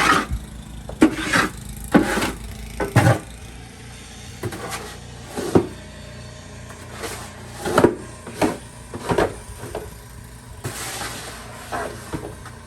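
Snow shovel scraping and striking into packed snow in irregular strokes about once a second, with a longer scrape near the end, over a low steady rumble.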